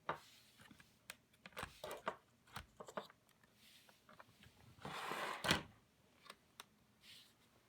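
Scattered clicks and knocks of hands handling an opened-up portable DVD player and its small parts, with a short scraping rustle about five seconds in that ends in a sharper knock.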